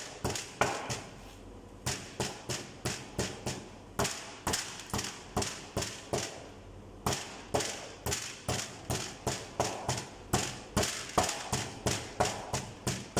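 Hammer striking coarse stone aggregate on a concrete cube, repeated sharp blows about two to three a second, with short pauses about one second in and again around six seconds in. The blows crush 20 mm aggregate into small particles as sample preparation for an alkali-silica reactivity test.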